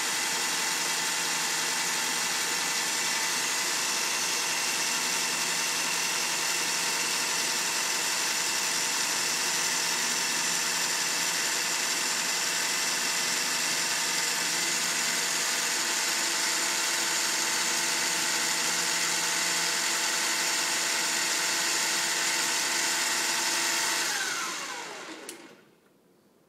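Central Machinery (Harbor Freight) 7x10 mini lathe running at high speed in forward, its motor and change gears driving the lead screw with a steady whine. About two seconds before the end it is switched off and spins down with a falling whine.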